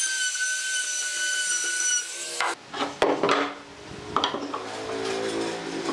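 Compact trim router cutting along the edge of a wooden board: a steady high whine with cutting hiss that cuts off suddenly about two and a half seconds in. A few sharp wooden knocks follow as pieces are handled, and background music comes in near the end.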